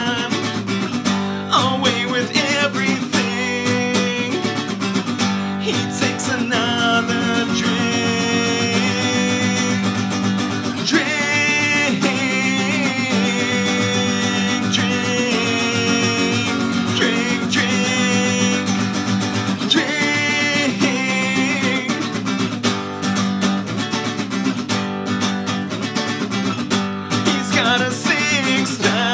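Acoustic guitar played through an original song, with steady picked and strummed notes.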